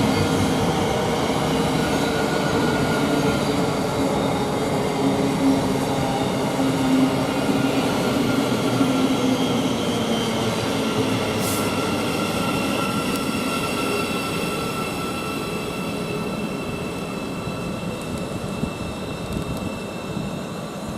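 Thameslink Class 700 electric multiple unit running into the platform: several steady motor whines over wheel and rail rumble, slowly fading. A brief high hiss comes about eleven seconds in.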